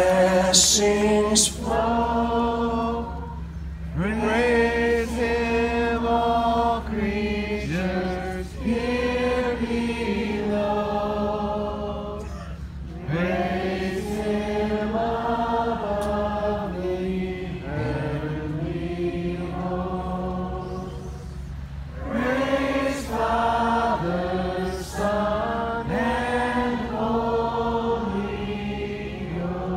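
Singer and crowd singing together in long held phrases, each new phrase sliding up into its first note, with little instrumental backing.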